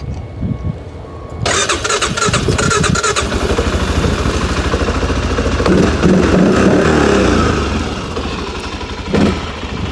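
Tracker 570 ATV engine starting on the electric starter and catching about a second and a half in. It then runs with a rapid steady pulse, revs up briefly in the middle and settles back to idle.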